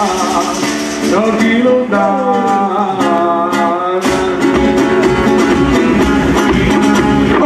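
Bottari festival music from the float: singing over guitar. About four seconds in, a low pounding beat joins in, the sound of the barrels and vats being struck.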